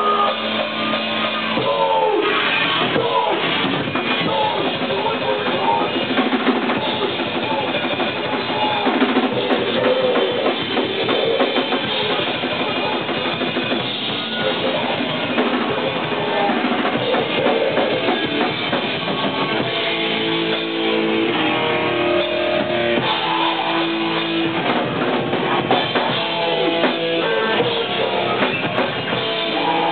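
Rock band playing live: electric guitar, bass guitar and drum kit playing a song together at a steady loud level.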